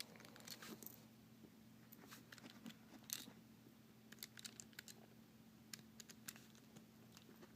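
Faint, scattered clicks and taps of small plastic speed-cube pieces (Aosu GTS2 M 4x4) being handled and snapped into place while a corner section is built, the loudest click about three seconds in.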